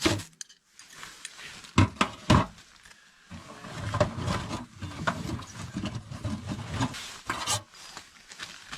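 Two sharp knocks close together, then several seconds of irregular rustling and clatter as camp gear is handled.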